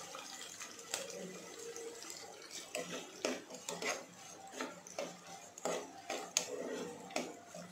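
Diced onions sizzling in hot oil in a nonstick pot. From about three seconds in, a steel spoon stirs them, scraping and knocking against the pot several times.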